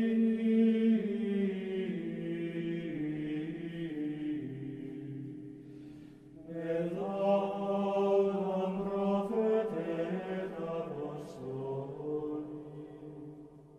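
Slow sung chant of long held notes moving up and down in small steps. One phrase dies away about six seconds in, a second begins soon after, and it fades out near the end.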